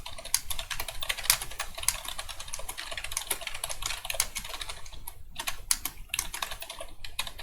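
Rapid, continuous typing on a Perixx PERIBOARD-106 computer keyboard, many key clicks a second, with a couple of brief pauses about five and six seconds in. It is typing-test speed, around 80 words per minute.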